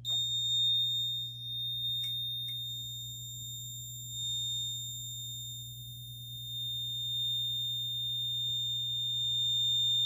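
An EST QuickStart QS1 fire alarm control panel's built-in buzzer sounding one steady high-pitched tone during its lamp test.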